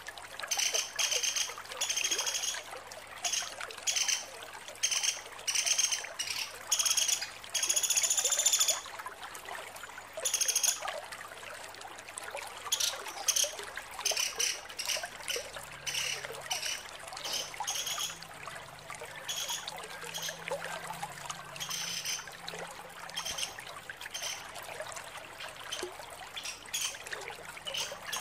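Female pelatuk sampit woodpecker calling in rapid, high chattering trills. The bursts come about once a second for the first ten seconds, then turn shorter and sparser.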